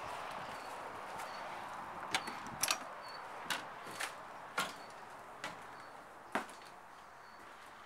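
Footsteps and knocks as someone climbs the entry steps into an RV and goes through its door: a run of sharp single knocks, half a second to a second apart. The outdoor background thins out once inside.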